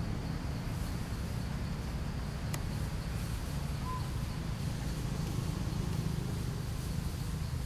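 Forest ambience: a steady low rumble with a faint steady insect hum above it, one sharp click about two and a half seconds in, and a brief high chirp about four seconds in.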